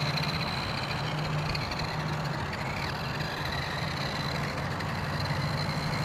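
Steady motor hum with a faint high whine over a haze of outdoor noise.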